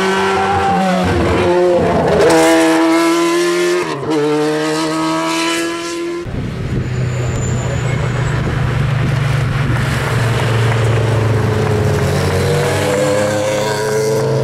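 Race car engine running hard through a hairpin, its pitch dropping and climbing again with gear changes over the first six seconds. After a sudden change, other cars' engines approach, with a rising rev near the end.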